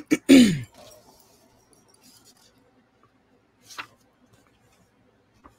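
A brief voice-like sound from a woman that falls in pitch, like a "hmm", then near quiet broken by a few soft clicks as a paperback book is handled.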